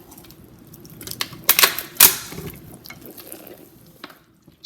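A utensil clicking and knocking against a mixing bowl as pancake batter is stirred into a thick dough, with a cluster of loud knocks about one and a half to two seconds in.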